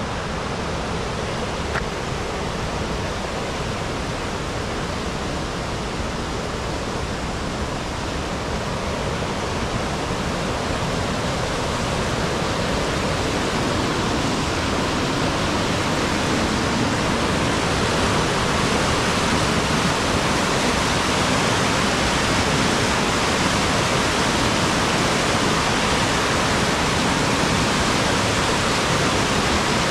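Steady rush of water with no breaks, growing louder about halfway through and then holding.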